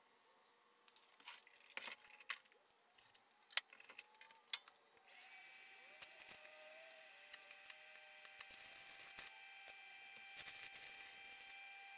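Scattered metal clinks and knocks, then from about five seconds in a steady hiss with a thin high whine as a CV axle shaft clamped at the bench is welded.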